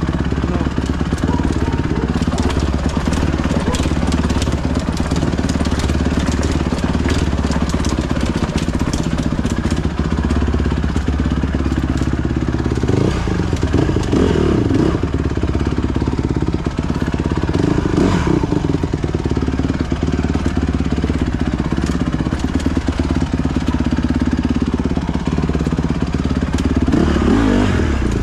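Dirt bike engine running as the bike is ridden slowly. Its note rises and falls with the throttle a few times: about halfway through, again a few seconds later, and near the end.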